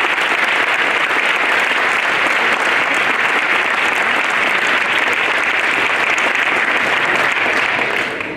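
Audience of schoolchildren clapping, steady and loud, dying away at the very end.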